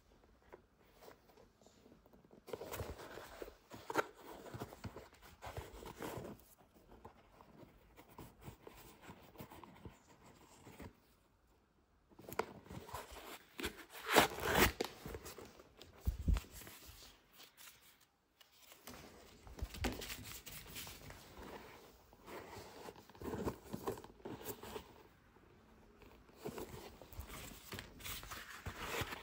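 Handling noise from a synthetic football boot: fingers rubbing, squeezing and flexing the knit upper make irregular rustling and scratching sounds, with brief pauses.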